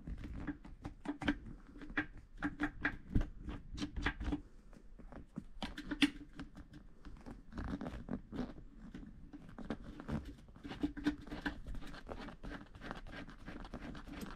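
Fingers turning and handling chrome thumb screws at a motorcycle seat mount on a painted steel fender: an irregular run of small metal clicks and taps, with scratching and rubbing of the vinyl seat cover between them.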